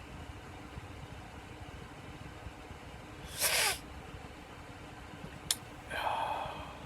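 A man sneezing once, a short sharp burst about three and a half seconds in, brought on by snorted cayenne pepper. A sharp click follows about two seconds later, then a short breathy vocal sound.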